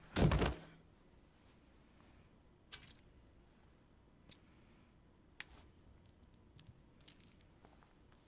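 A short, loud breathy exhale, then quiet with a few faint, scattered clicks.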